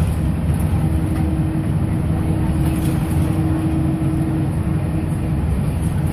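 Cabin noise of a Scania L94UB six-wheeled bus under way: a steady low drone from the engine and ZF automatic gearbox with road noise. A steady whine rises out of it about a second in and fades shortly before the end.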